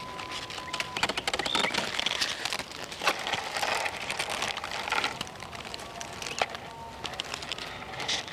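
Irregular rustling and crackling with many sharp clicks, busiest in the first half, with a thin steady whistle-like tone during the first second.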